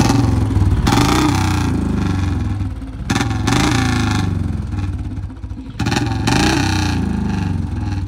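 Royal Enfield Bullet BS6 single-cylinder engine blipped three times, about three seconds apart. Each rev starts with a sharp crack from the exhaust. These are forced backfire pops ('patakas'), made by flicking a switch spliced into the bike's wiring while revving.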